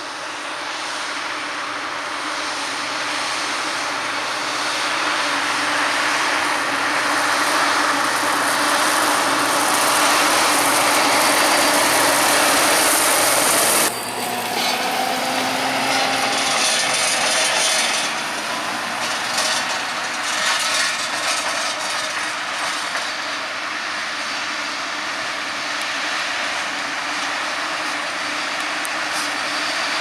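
JCB 542-70 telehandler's diesel engine running and growing steadily louder, until a sudden cut about 14 seconds in. After the cut, a Fendt 939 Vario tractor pulling a Krone BiGPack 1290 big square baler runs in work, its engine and baler growing louder near the end.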